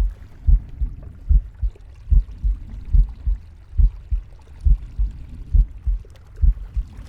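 A heartbeat: steady lub-dub pairs of low thumps, about seventy a minute.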